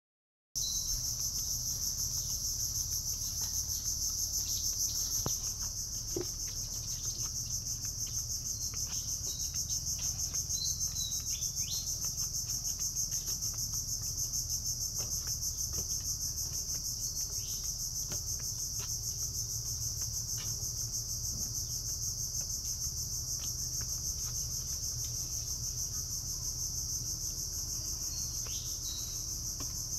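A steady, high-pitched chorus of insects, unbroken throughout, with a few short bird chirps scattered through it.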